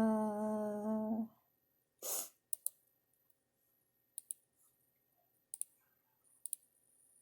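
A woman hums one steady held note for about a second, then breathes out. After that come scattered light clicks, several in quick pairs.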